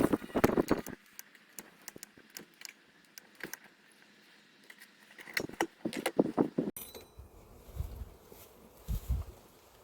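Metal clinking and rattling from a bee smoker being handled and lit, in bursts at the start and again about five seconds in, followed by a few low puffs.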